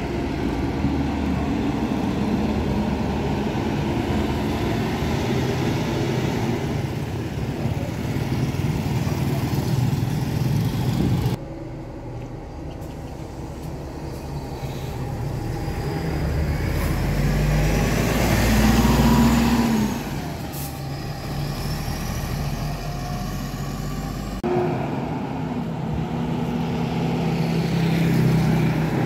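Heavy road traffic, buses and trucks, passing on an expressway exit road with diesel engines running. One vehicle grows louder and passes closest about two-thirds of the way through, a high whine rising and falling with it, then fades. The sound changes abruptly twice.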